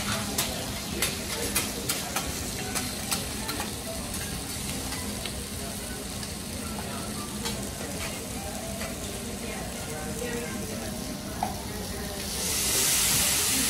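Shrimp and scallops sizzling on a steel teppanyaki griddle, with sharp clicks and taps of a metal spatula against the plate in the first few seconds. About twelve and a half seconds in, a loud steam hiss starts up from the griddle.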